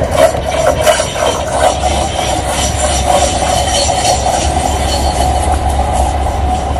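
Light rail tram running on curved track: a steady rumble with faint high wheel squeal, and a quick run of clicks in the first second.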